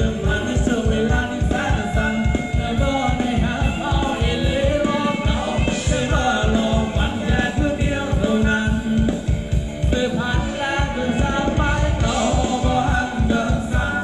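Thai ramwong dance music played by a band, with a steady drum beat and a singer's voice over it.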